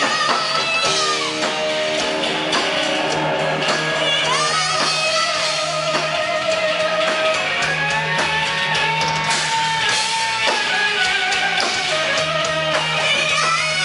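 Live rock band playing loud through a PA, electric guitar to the fore over bass and drums, with long held lead notes that bend in pitch.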